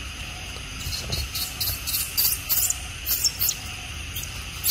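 Insects chirping outdoors: a steady high drone, with a run of short, very high-pitched chirps coming a few times a second from about a second in.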